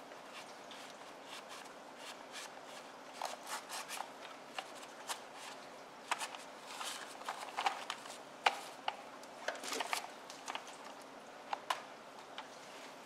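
A plastic toy truck being wiped with a cloth and handled: irregular rustling of the cloth with small clicks and taps of hard plastic, busiest in the middle.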